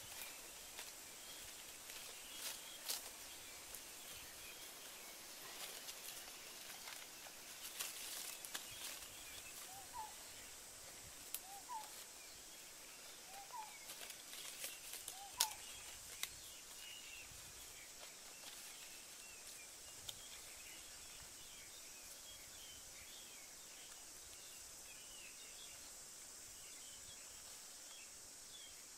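Faint rustling of leaves and light clicks as leaves and duck eggs are handled into a shallow pit in the ground. A bird repeats a short rising call about every two seconds around the middle, over a steady high hiss.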